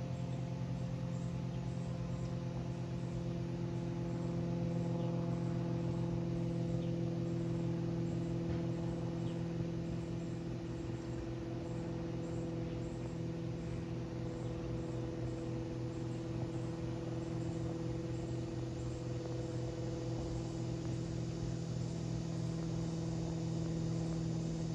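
Cessna 182 Skylane's piston engine and four-bladed propeller droning steadily overhead, a low hum with a fast, even throb in it.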